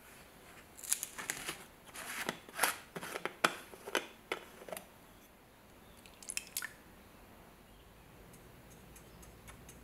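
Red plastic screw cap twisted off a bottle of rust converter, a quick run of sharp plastic clicks and crackles as the cap breaks away from its tamper ring. A shorter clatter of plastic follows a little later, then faint light ticks near the end.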